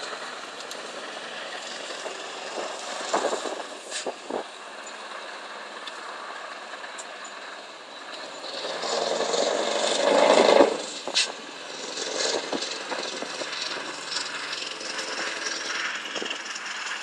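Scania V8 truck engine pulling a long trailer away, a steady drone that swells to its loudest about ten seconds in and then settles as the truck moves off. A few sharp knocks sound about three to four seconds in.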